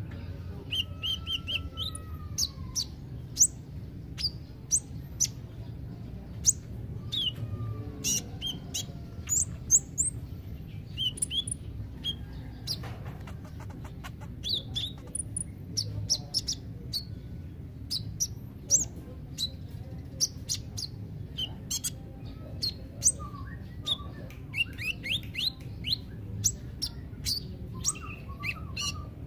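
Male van Hasselt's sunbird (kolibri ninja) singing: rapid, high, thin chirps and sharp tick notes in irregular bursts throughout.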